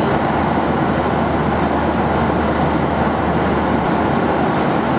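Steady interior noise of a Boeing 737-800 cruising at 38,000 ft: an even rush of airflow with a low, constant hum from the engines underneath.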